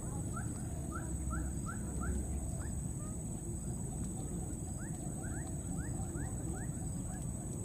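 Short rising animal chirps, about three a second, in two runs: one at the start and one from about five seconds in. Under them runs a steady low rumble of background noise.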